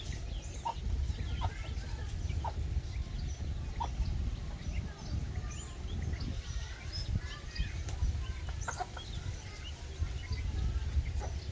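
Domestic hen clucking while her chicks peep, many short high chirps scattered through, over a low rumble.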